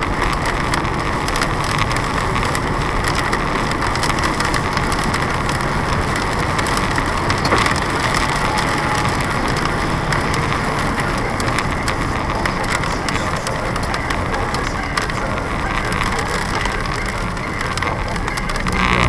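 Steady tyre and road noise of a car driving on a wet highway, heard inside the cabin, with rain spattering on the windshield as many faint ticks.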